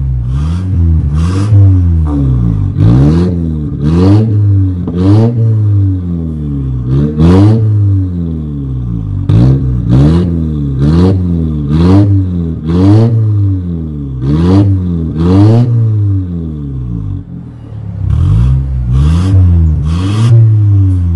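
Mercedes-Benz C200 W204 four-cylinder engine blipped repeatedly from idle, about one rev a second with short lulls, through an aftermarket stainless full exhaust with a remote-operated valve. The valve is switched during the revving between its stock-sounding closed setting and its open racing setting.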